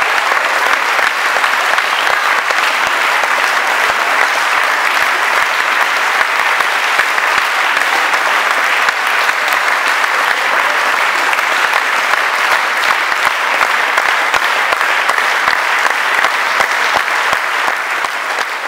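Audience applauding steadily, a dense mass of hand claps.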